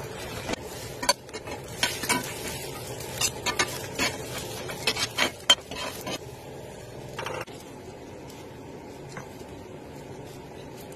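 Metal spatula scraping and tapping a cast-iron skillet while an omelette fries with a steady sizzle. The scraping stops about seven seconds in, leaving only the sizzle.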